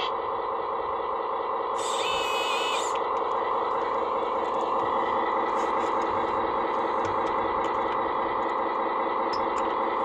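RC Komatsu WA470 wheel loader running with a steady, many-toned hum. A short high-pitched burst comes about two seconds in.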